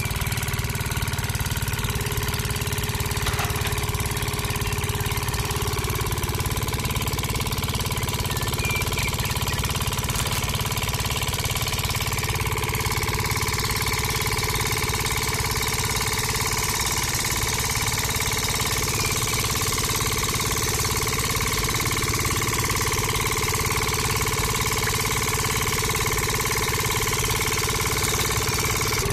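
Miniature diesel-style engine running steadily, belt-driving a small roller press, with an unchanging hum.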